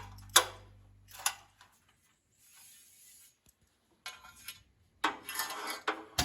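A few sharp clicks and knocks, then a quick run of rattling and clattering, as from metal hardware and conduit being handled. A music chord rings out and fades over the first second or so.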